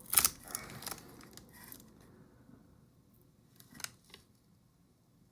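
Sharp clicks and rustling of small tools and parts being handled, loudest in the first second, then a few fainter clicks a little under four seconds in.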